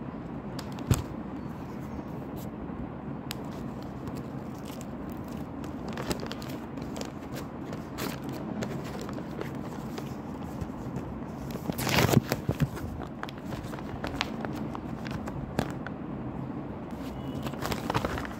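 Blind-bag packaging being handled: crinkling, rustling and scattered small clicks over a steady low background noise. A louder burst of crinkling comes about twelve seconds in.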